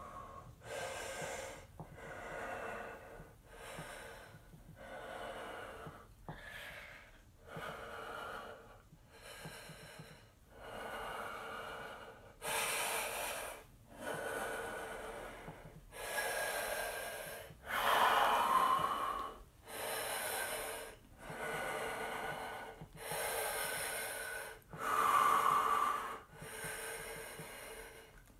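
A man breathing hard and rhythmically while holding a deep wide squat, about one loud breath every second or so, the breaths growing louder and heavier about halfway through.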